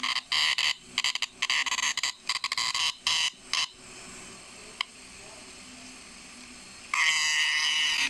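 Green cicada held in the hand, buzzing in quick harsh bursts for the first three and a half seconds, then one loud unbroken buzz for about the last second.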